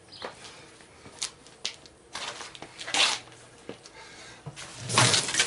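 Irregular rustling, scuffing and clicking from someone stepping about on concrete and handling a power tool and its cord. It is loudest about three seconds in and again near the end; no motor is running.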